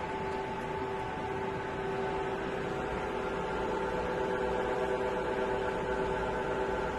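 Doosan Puma GT2100M CNC turning center running: a steady machine hum with several steady whining tones over a hiss.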